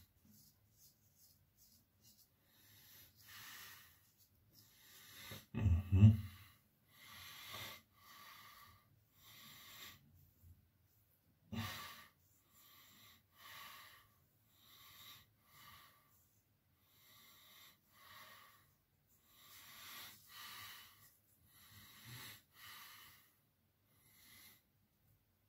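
Straight razor with a Russian Damascus blade scraping through lathered stubble on the neck and jaw in short strokes, about a dozen at irregular intervals. A loud thump about six seconds in and a sharp knock about halfway through.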